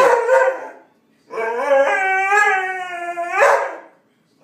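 Dog howling back at being scolded: the end of one howl, then after a short pause one long, wavering howl of about two seconds that rises at its end.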